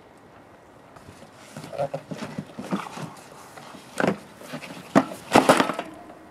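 Large cardboard shipping box being opened and its inner box slid out of the outer sleeve: cardboard scraping and rustling, with a sharp knock about four seconds in and a cluster of louder knocks and thumps around five seconds in.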